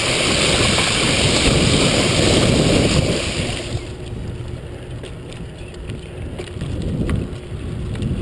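Bicycle wheels ploughing through shallow floodwater, a loud steady splashing hiss that stops abruptly about three and a half seconds in as the bike leaves the water. After that, quieter rolling with a few light clicks and rattles.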